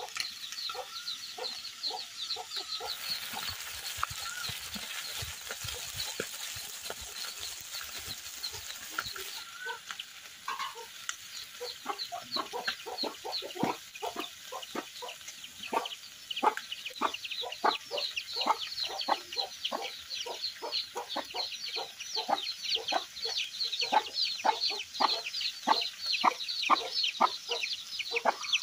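Chickens clucking over and over, the clucks becoming denser and louder in the second half. A steady hiss lasts about six seconds starting a few seconds in.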